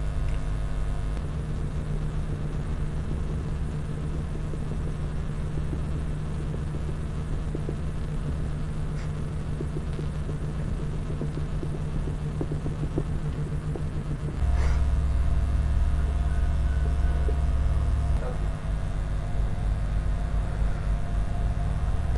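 Steady low mechanical hum that shifts abruptly to a louder, deeper drone about two-thirds of the way through.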